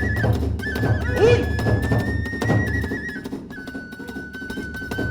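Kagura accompaniment: a bamboo transverse flute plays a high melody over steady big-drum beats and sharp percussion strokes. After about three seconds the drums drop out and the flute holds one long note, then the drumming comes back in near the end.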